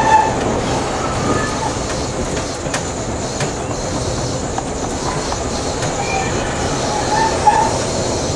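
Peter Witt streetcar running along the track, a steady rumble of wheels on rail with occasional clicks over rail joints. Short high wheel squeals come in near the start and again about six to seven seconds in.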